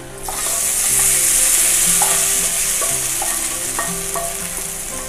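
Hot tempering oil with mustard seeds, urad dal and curry leaves poured from a pan onto ground fried-gram chutney, sizzling sharply as it hits about a third of a second in, then slowly dying down.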